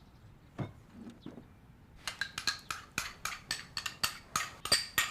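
Eating utensils clinking against dishes: a quick run of light clicks, about four or five a second, starting about two seconds in, after a soft knock.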